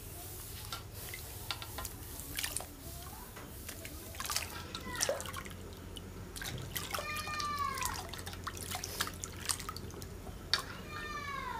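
Water splashing and dripping in a metal basin as wild mushrooms are squeezed and washed by hand, with many short drips and splashes. A few arched calls sound in the background about five, seven and eleven seconds in.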